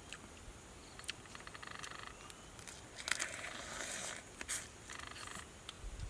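Eating sounds from sucking and biting meat out of cooked crab claws: scattered clicks of shell and a noisy slurp from about three to four and a half seconds in. A faint rapid trill sounds in the background about a second in.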